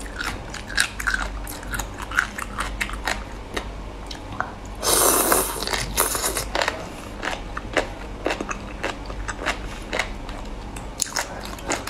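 Close-up eating sounds: wet chewing and biting clicks as food from a can is eaten, with a loud slurp as a piece is sucked in off the chopsticks about five seconds in.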